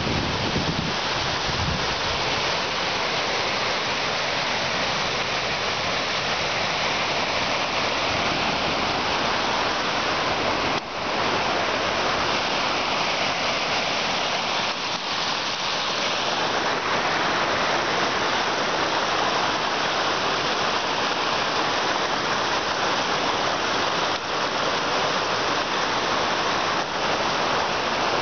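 Water pouring out below a lake dam and rushing over rocks in the creek: a steady, loud whitewater rush.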